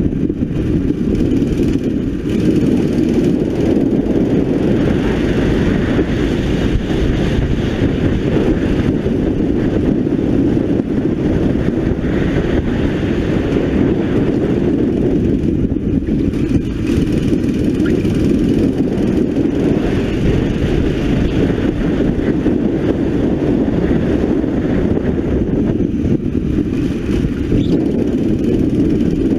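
Onboard sound of a 9 hp go-kart engine running hard through a lap. Its pitch swells and falls back every few seconds as the kart brakes into corners and accelerates out.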